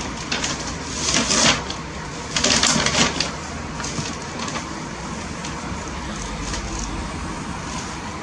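Bus-station street ambience: a steady background of traffic, with two short hissing bursts about a second and two and a half seconds in.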